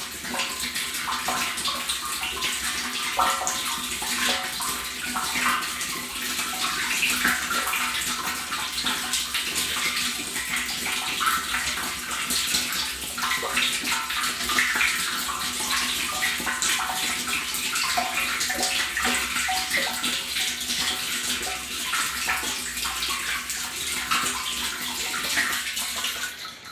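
Water running steadily, stopping just before the end.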